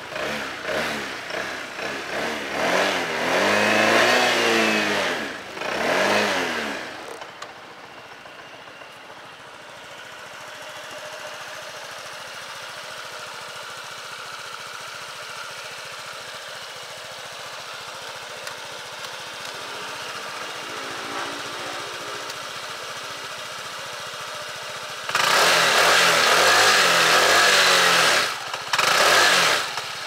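Honda SH150 scooter's single-cylinder four-stroke engine and exhaust as it rides past, the pitch climbing then dropping with each pass. It is loud for the first several seconds and again near the end, with a quieter steady stretch between.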